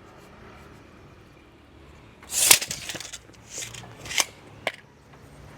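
Carpentry work noises: one loud, sharp crack-like clatter about halfway through, then three shorter knocks or clicks of wood being handled.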